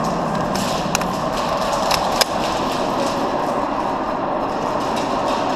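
Steady noisy din inside a warehouse airsoft arena, with a few sharp clicks or knocks about one second and two seconds in.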